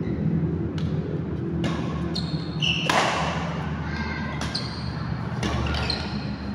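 Doubles badminton rally in a large indoor hall: sharp racket hits on the shuttlecock every second or so, with short high squeaks of shoes on the court mat, over a steady low hum.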